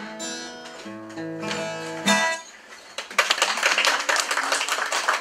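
Acoustic guitar strumming the closing chords of a song, which stop a little over two seconds in. About a second later the audience starts applauding.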